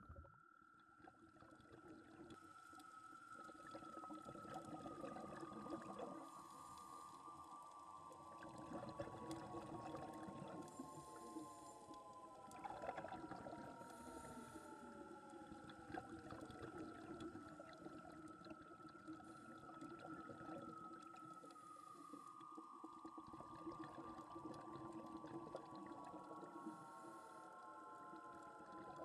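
Eerie, whale-song-like ambient soundtrack: a high held tone that bends down into several slowly falling tones, twice, over a low steady hum.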